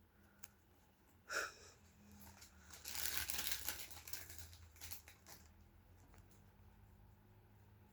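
Soft rustling and crinkling, like dry material being handled or moved through: a short sharp sound just over a second in, then a denser stretch of rustling for about a second and a half, tailing off into a few small ticks.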